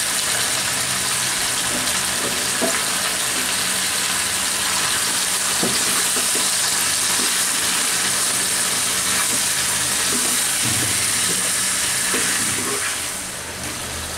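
Chicken pieces sizzling steadily in hot oil in a nonstick karahi as they are stirred with a silicone spatula, with a few soft knocks of the spatula against the pan. The sizzle drops a little near the end.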